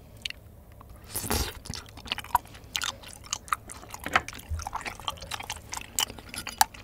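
Close-miked chewing of a piece of bunmoja dangmyeon, a thick, chewy glass noodle in spicy sauce. A louder wet sound comes about a second in, then a run of sticky, irregular mouth clicks.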